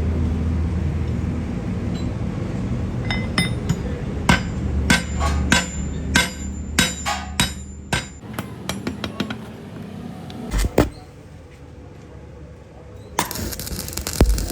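Hammer striking steel parts in an irregular run of sharp, ringing metal blows that come faster toward the end, over a low machine hum that fades early on. Near the end a loud hissing, crackling noise starts.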